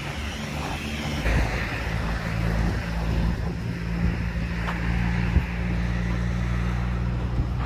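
A motor vehicle's engine running steadily close by, a low even hum that comes in about a second in, over general road traffic noise.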